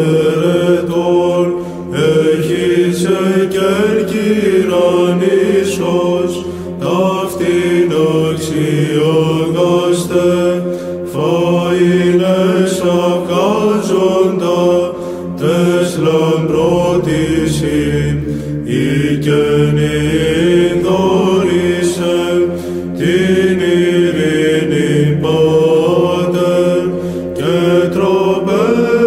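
Male chanters singing Greek Orthodox Byzantine chant, a slow ornamented melody over a steady held drone note (ison), in long phrases with short pauses between them.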